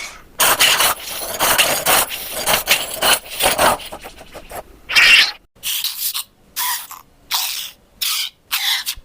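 Raspy, hissing creature sound effects for a prehistoric fish. A dense rasping run is followed, from about five seconds in, by a string of short rasps about two a second.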